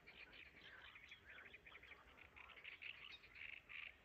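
Faint chorus of small birds chirping, many short high calls overlapping, with a couple of slightly louder calls near the end.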